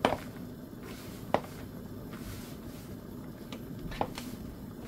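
Hand mixing and squeezing crumbly flour dough in a plastic bowl, with three sharp taps against the bowl: one at the start, one about a second later, and one near the end.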